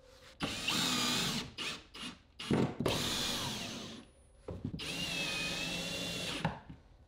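Cordless drill driving wood screws through a wooden rack into a plywood wall. There are three runs of the motor whine, a second or two each, with a few short trigger blips between the first two, and the pitch shifts as the screws bite.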